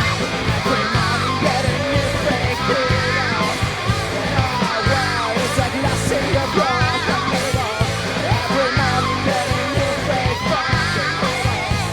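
Rock music: a guitar-driven band with a wavering, wordless melody line over a steady beat.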